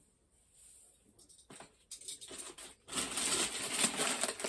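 Plastic packaging crinkling and rustling as it is handled, starting about three seconds in, after a few light clicks of items being moved on the table.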